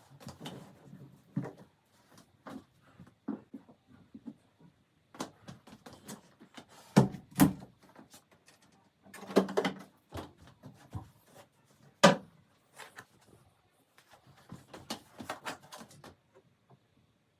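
Household objects being handled: irregular clicks, knocks and light rustling, with a few louder knocks about seven, ten and twelve seconds in.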